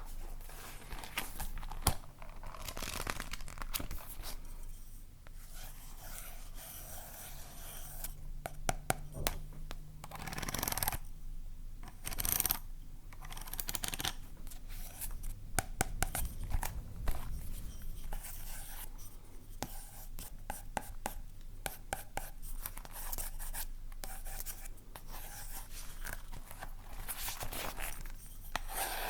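Close-miked scratching, scraping and clicking of objects handled for ASMR triggers, with many short sharp clicks among rough scratchy stretches.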